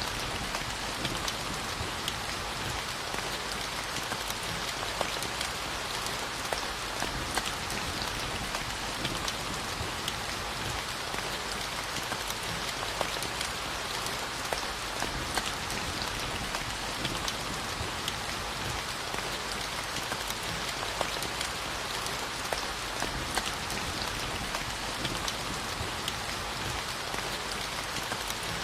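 Steady rain falling, with a continuous hiss and many small drop ticks and patters on a surface.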